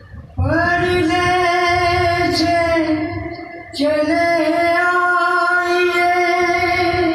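A man singing a manqbat, a devotional Shia song of praise, in a high, strong voice. He holds two long notes of about three seconds each, with a short break for breath about three and a half seconds in.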